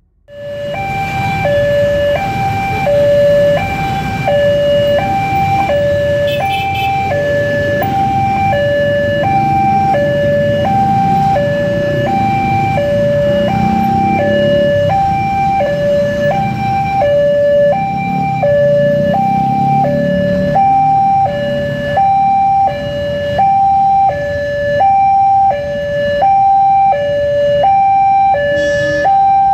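Railway level-crossing warning alarm sounding its electronic two-tone signal, switching between a high and a low pitch about every 0.7 seconds, the signal that a train is approaching and the crossing is closed. Underneath it is the low rumble of road traffic, mostly motorcycles.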